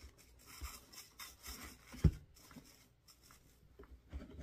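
Hands rubbing and rustling a wired fabric ribbon bow and pipe cleaner as the end is tucked in, in a string of short scuffs, with one light knock about two seconds in.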